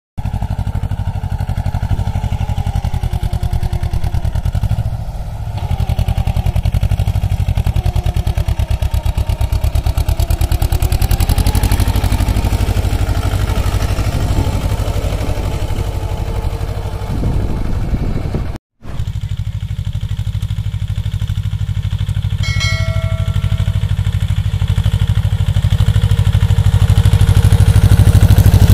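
Mahindra Jivo 245 DI compact 4WD tractor's two-cylinder diesel engine running steadily under load while it pulls a reversible plough through the soil, with a rapid, even firing beat. The sound drops out for a moment about two-thirds of the way in.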